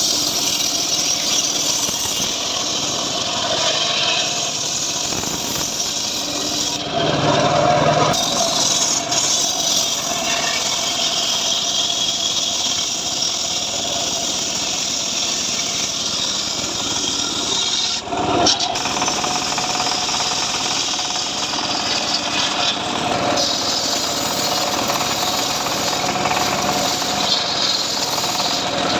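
Homemade engine-driven sawmill (gergaji srekel) sawing through a sengon log, the blade cutting steadily over the running engine. It briefly gets louder about seven seconds in and again near eighteen seconds.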